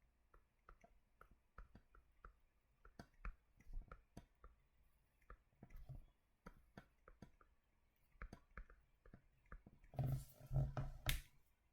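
Faint, irregular light clicks and taps, scattered through the quiet, with a few louder, low, muffled sounds about ten seconds in.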